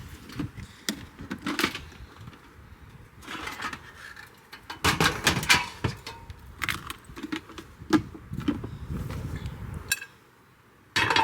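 Irregular clinks, knocks and rustling of items being handled, with a jangle like keys. This sounds like someone rummaging through gear.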